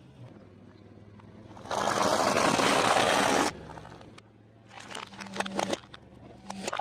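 Close-miked eating: a loud crunching stretch lasting nearly two seconds, then a quick run of wet chewing clicks near the end.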